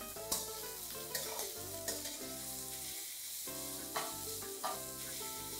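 Sliced onions frying in hot oil in a pan with a steady sizzle, and several scrapes of a metal spatula stirring them through the oil.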